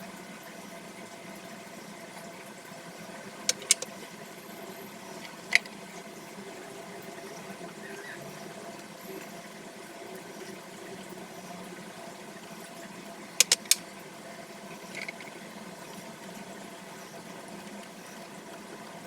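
A steady mechanical hum with a few sharp clicks or taps: a pair a few seconds in, a single one shortly after, and a cluster of three past the middle.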